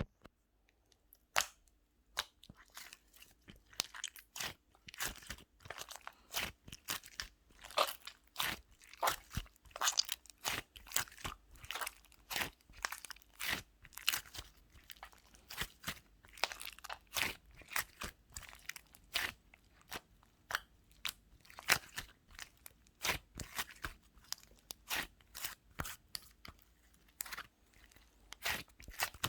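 A long series of irregular, crisp crunching clicks, sometimes several a second and sometimes with short pauses.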